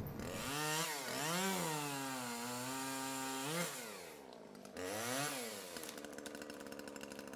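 A small electric motor whining, its pitch climbing and falling twice as it speeds up and slows down, with a steadier whine between; near the end it runs at a low steady speed with a fast fine ticking.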